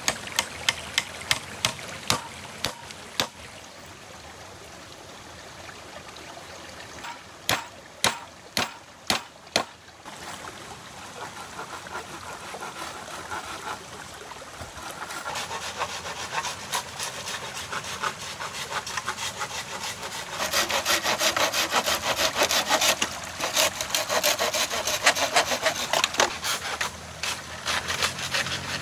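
Wood being cut with a handsaw in quick, rasping strokes that grow louder, heaviest over the last third. Two runs of sharp knocks come before it, one at the start and one about eight seconds in.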